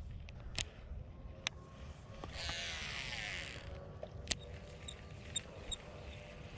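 Seaknight REDFOX baitcasting reel's spool whirring for about a second as line pays out on a cast, with a few sharp clicks before and after.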